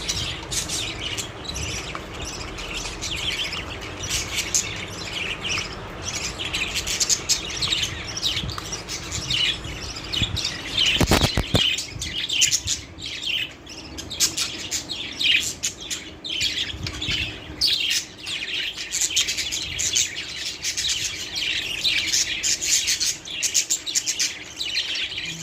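A flock of pet budgerigars chattering, with a steady stream of rapid high chirps and squawks overlapping. A brief low thud sounds near the middle.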